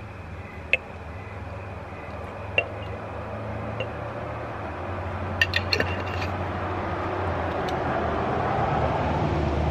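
Water heating in a small covered saucepan on a portable stove, its hiss building steadily toward a simmer over a low steady hum. A few light clinks of a glass jar, with a quick run of them about five seconds in.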